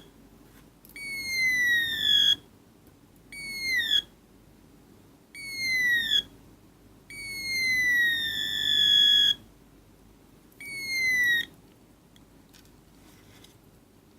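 Electronic parrot sound-effect circuit giving five synthetic whistling squawks, each sliding down in pitch. They are spaced a second or so apart and vary from short chirps to one long call; the last one is about three-quarters of the way through.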